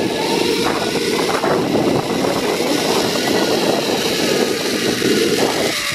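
Zip line trolley rolling fast along the steel cable during a ride: a loud, steady whirring rumble, mixed with wind rushing over the camera microphone.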